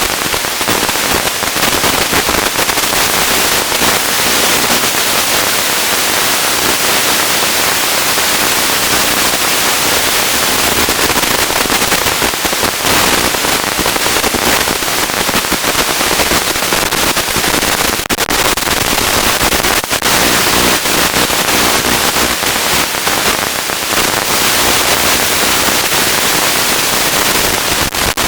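Loud, steady crackling hiss of static from an analog FPV video link, with a few short clicks, typical of a weak or broken-up signal.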